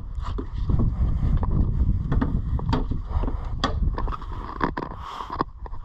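Low rumble of wind buffeting the microphone, with scattered sharp clicks and knocks.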